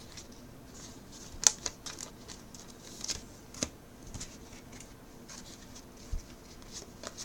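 Baseball trading cards being flipped through by hand, card sliding over card: faint rustling with scattered soft clicks, the sharpest about a second and a half in and again a little after three and a half seconds.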